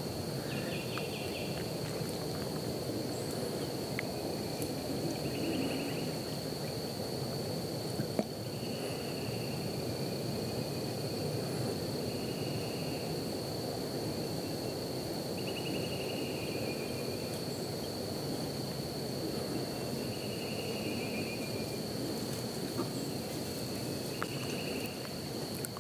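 Woodland ambience: a steady high-pitched insect drone, with a short buzzy trill repeating about every four seconds over a low background hiss. There is a single sharp click about eight seconds in.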